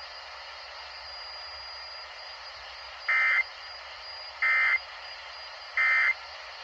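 Three short, identical bursts of warbling digital data tones, about a second apart, over faint hiss: the Emergency Alert System end-of-message (SAME) tones that mark the close of the warning broadcast.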